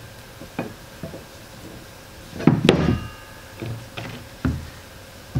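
Metal parts of a boat prop shaft assembly being handled and reassembled: a few light clicks, a louder metallic clank with a brief ring about halfway through, then several dull knocks as the steel shaft is set down on wooden blocks.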